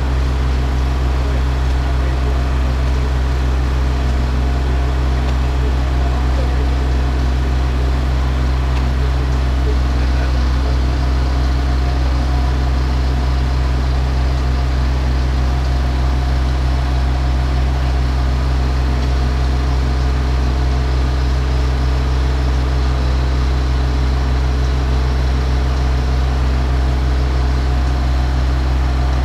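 Bobcat E32 mini excavator's diesel engine running steadily under hydraulic load as its yellow arm-mounted drive head pushes a steel foundation pier pipe down into the ground. It is a constant low, even hum with no knocks or changes.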